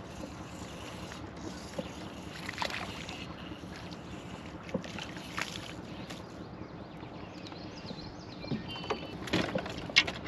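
Small boat on the water: a steady wash of water noise with a faint low hum, scattered knocks and clicks, and a cluster of sharper knocks near the end.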